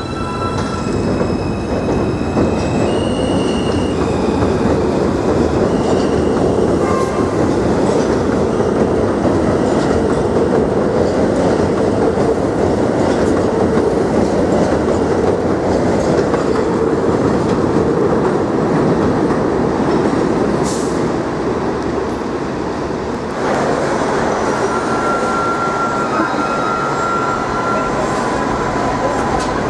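R160A subway train running along the track with a steady rumble of wheels on rail. In the first few seconds its electric motors give a whine that rises in steps, and about three quarters of the way through the sound suddenly gets louder.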